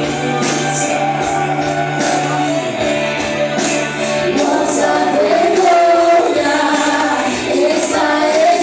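Live worship music: a vocal group sings with band accompaniment, female voices prominent. A held low bass note drops out about four seconds in, and the voices rise and carry on.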